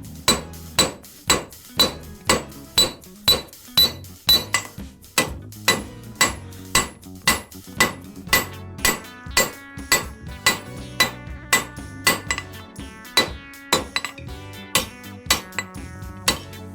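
Blacksmith's hand hammer striking hot steel flat bar on an anvil in a steady rhythm of about two ringing blows a second, drawing out the tapered rat tail of a bottle opener.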